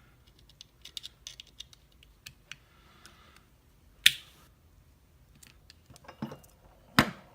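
Small metallic clicks and rattles of a picked Abus D6 euro cylinder being worked off its holder, with two louder sharp metal clacks, about four and seven seconds in.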